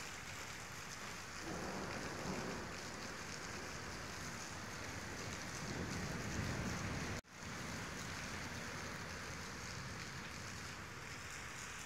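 Steady rain falling, with low rumbling swells about two seconds and six seconds in. The sound cuts out for an instant about seven seconds in, then the rain carries on.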